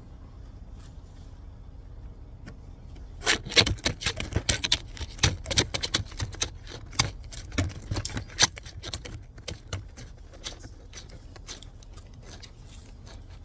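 Irregular sharp clicking and scraping begins about three seconds in as a dense run of clicks and thins out over the next several seconds, over a low steady hum.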